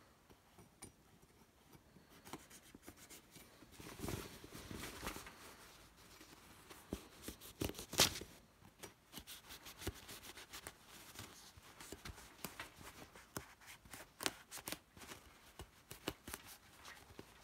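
Paring knife slicing through the stitching that holds a Velcro name tape strip onto a uniform, with faint, scattered scratchy snicks and cloth handling. The sharpest click comes about 8 seconds in.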